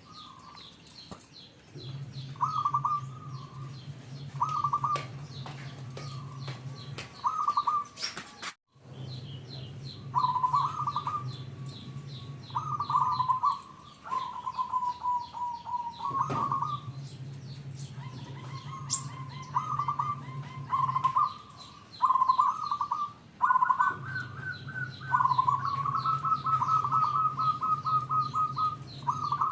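Zebra dove (perkutut) singing, repeating its trilled cooing phrases over and over, with small birds chirping faintly higher up and a low hum that comes and goes in long stretches.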